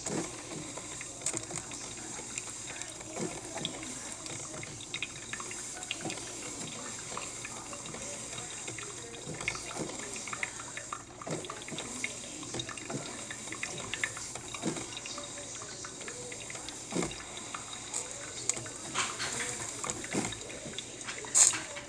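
Cuisinart drip coffee maker brewing: a steady hiss of running water with irregular small pops and sputters.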